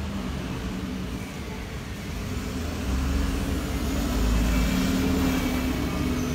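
Street traffic: a motor vehicle's engine rumbling close by, growing louder about three seconds in and peaking around four to five seconds.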